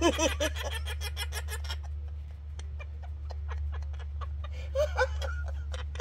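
Laughter: a voiced laugh at the start that trails off into quick, breathy pulses and fades, with another short voiced laugh about five seconds in. A steady low hum runs underneath.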